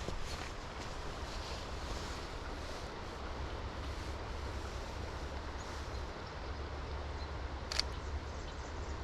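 Steady hiss of light rain and wind in the forest, with a low wind rumble on the microphone. One sharp click sounds near the end.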